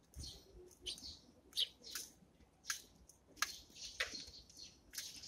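Eurasian tree sparrows chirping: about ten short, high chirps at irregular intervals.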